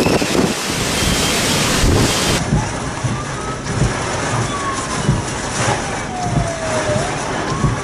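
Strong typhoon wind blowing and buffeting the microphone in gusts. After a cut a couple of seconds in, faint whistling tones glide up and down over the wind.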